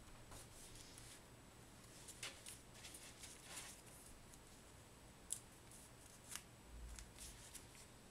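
Faint, irregular crinkles and rustles of a small sheet of origami paper being folded and creased by hand, with a sharper crackle about five seconds in.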